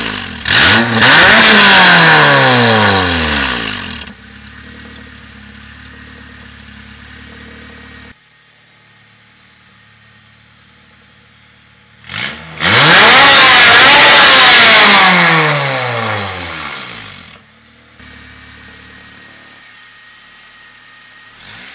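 Honda K20A four-cylinder engine revved through an aftermarket exhaust: header, high-flow cat, resonator, Civic Si muffler and an electric exhaust cutout. It rises in a quick blip, holds a high rev and falls back to a steady idle. About halfway through, a short blip comes first, then a second long high rev held for a few seconds before dropping back to idle.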